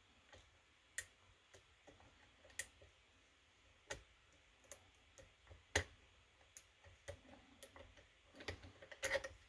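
Faint, irregular metallic clicks of a lock pick and tension wrench working the pins of a key-in-knob (KIK) lock cylinder, with a quick run of clicks near the end.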